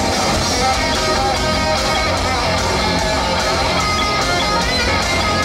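Loud rock music led by electric guitar, echoing through a large indoor arena.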